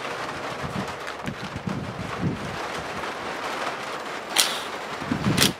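A cordless drill-driver runs in two short bursts about a second apart near the end, loosening the screws of an electrical outlet. A steady hiss runs underneath.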